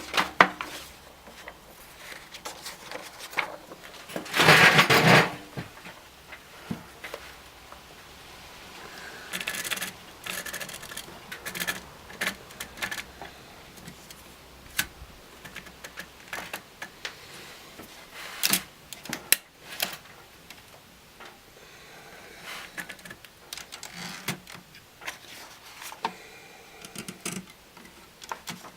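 Olivetti Lettera DL manual typewriter being worked: scattered sharp clicks and clacks of its keys and mechanism, in irregular runs, with one louder rasping noise lasting about a second some four seconds in.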